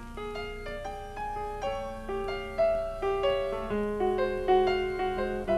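Background music on a keyboard: a melody of short notes over held lower notes.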